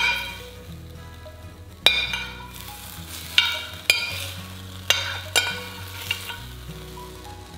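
A metal spoon scraping roasted vegetables out of a ceramic baking dish, with about five sharp clinks of the spoon against the dish, each ringing briefly, over a soft scraping and sliding.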